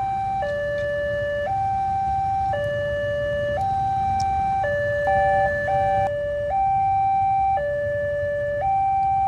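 Railway level crossing's electronic warning alarm sounding from its pole loudspeaker: two steady tones alternating about once a second, a high-low signal that the barrier is down and a train is coming. About five seconds in, the alternation briefly stutters.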